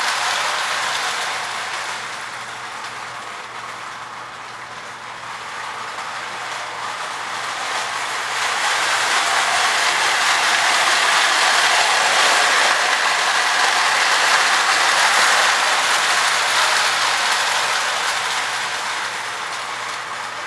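Marx 897 lithographed tin toy train running around its track with a steady metallic clatter of wheels and cars. It fades as the train runs away on the far side of the loop, then grows loud again from about 8 s in as it comes back around, easing off near the end.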